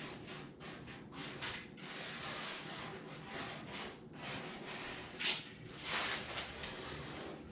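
Handling noise while adhesive is put onto foam board: irregular rustling and scraping strokes, with two louder swishes about five and six seconds in.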